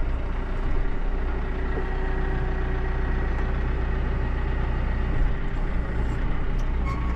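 Tractor's diesel engine idling steadily, with a low hum and a faint steady whine over it.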